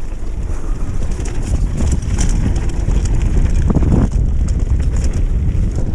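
Mountain bike rolling fast down a loose dirt and gravel trail: wind buffeting the microphone, tyres crunching over stones, and the bike clattering over bumps in a string of short knocks, most densely about four seconds in.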